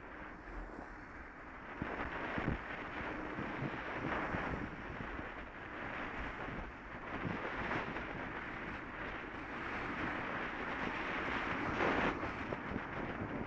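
Wind buffeting the microphone of a cyclist's camera while riding, with road traffic passing close by; the noise rises a little near the end as a car passes.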